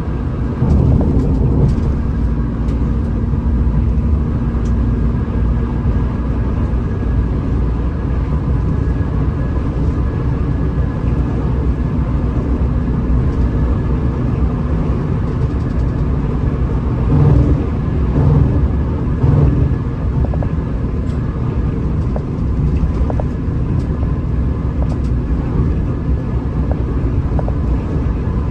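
Hino RM 280 bus's diesel engine and tyres running at highway speed: a steady low rumble, with a few louder bumps a little past the middle.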